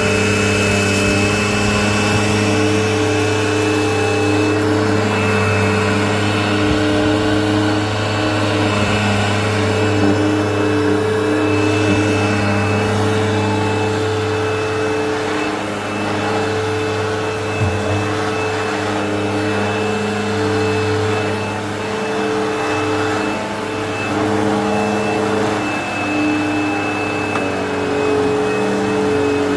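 Eureka Whirlwind LE upright vacuum cleaner running steadily over a rug, a loud motor hum with a thin high whine on top that shifts slightly in pitch now and then.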